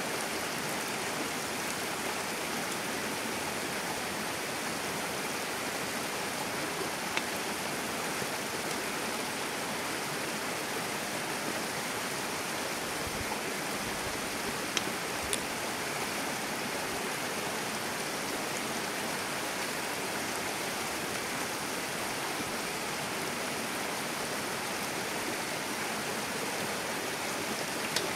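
Flowing stream running steadily, with a few faint clicks of a wooden spoon against a steel bowl.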